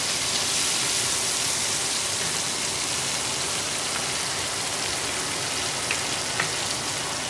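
Steak, onions and mushrooms sizzling steadily in a cast-iron skillet, kept cooking by the pan's stored heat after the burner is switched off. Two faint clicks come about six seconds in.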